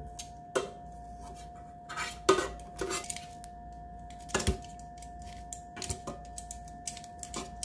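Metal kitchen tongs clicking and scraping against an air fryer basket's grill plate while turning chicken wings: a string of irregular sharp clicks, the loudest about two seconds in and again about four and a half seconds in.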